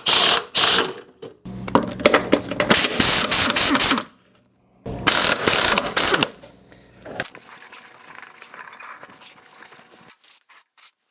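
Socket ratchet wrench clicking in three quick runs as a push mower's wheel bolts are turned, followed by quieter handling of tools and parts.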